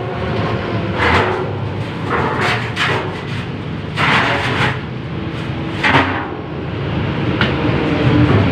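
Concrete mixer running, with a steady low drone and louder rushes of noise every second or two as the load turns in the drum.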